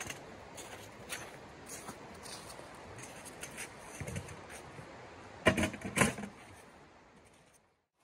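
Light clicks and knocks of camp gear being handled and set down inside a tent, with two louder knocks about two-thirds of the way through, over the steady rush of a river. Everything fades out near the end.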